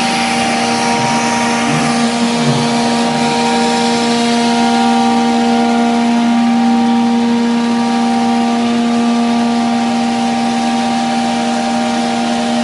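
CNC router spindle (7.5 HP) running steadily as the bit cuts melamine-faced 18 mm MDF in a single pass: a steady whine over the hiss of the cut.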